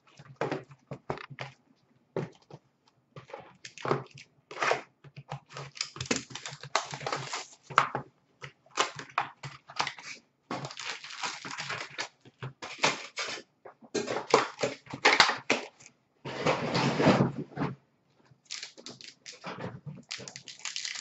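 Trading-card hobby boxes and packs being torn open and handled by hand: irregular rustling, crinkling and tearing of wrapping, cardboard and paper, in short bursts with brief pauses, the longest lasting a couple of seconds.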